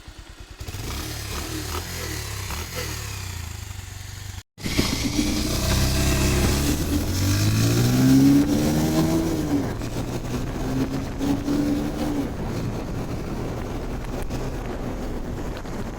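Bajaj Pulsar motorcycle's single-cylinder engine running at idle, cutting out abruptly about four seconds in, then revved up and back down twice before settling to idle. A new timing chain and balancer have just been fitted; the mechanic puts the noise still left down to worn head valves and guides.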